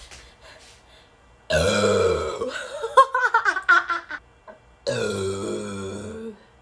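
A person burping: a loud, deep burp of about a second, then a string of short choppy sounds, then a second long burp of about a second and a half.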